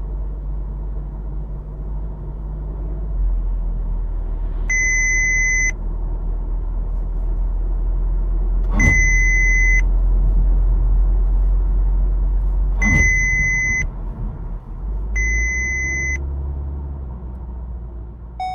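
VW Golf 7.5 R driving, with steady low cabin and road rumble, while the driver-assistance warning tone sounds four times, about a second each, as Lane Assist and then Emergency Assist demand that the driver take over steering. Two sharp thumps come with the second and third tones.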